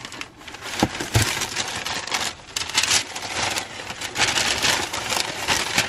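Tissue paper and paper box lining rustling and crinkling as hands dig through a sneaker box, in uneven handfuls, with a couple of soft knocks about a second in.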